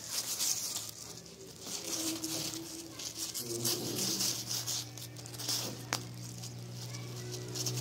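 Loose unhusked rice grains rustling and crackling under a kitten's paws as it walks and paws through the grain. A steady low hum comes in about three and a half seconds in.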